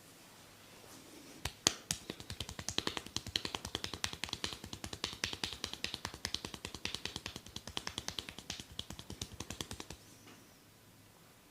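A barber's hands working percussively on a head during an Indian head massage: a fast, uneven run of sharp snaps and taps, several a second, starting about a second and a half in and stopping near the end.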